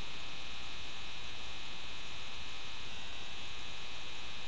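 Steady electrical hum with a high buzzing whine on top: interference noise in a webcam's microphone.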